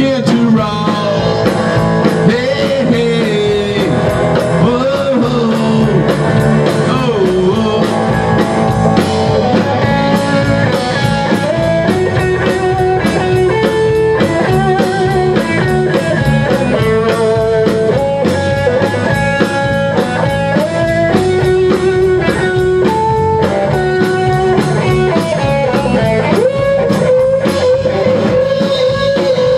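Live blues-rock band playing: an electric guitar lead line with bent, wavering notes, over rhythm guitar and a drum kit keeping a steady beat.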